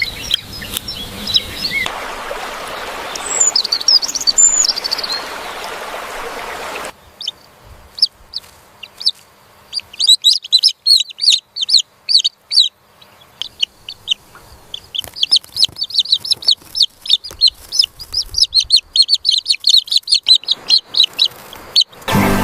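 Bird chirping: short, high chirps in quick runs. For the first few seconds a few chirps sit over a steady hiss, and after a sudden change about seven seconds in, the chirps come fast and dense, many a second.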